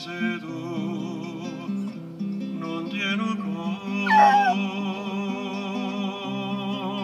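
A Cairn terrier puppy howls along to a recorded song. Its loudest howl is a falling one about four seconds in, with a shorter one just before it.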